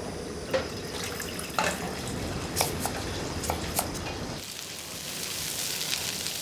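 Restaurant kitchen at work: several sharp clinks and knocks of pots, pans and utensils over a steady background, then from about four seconds in, food sizzling in a hot pan with an even hiss.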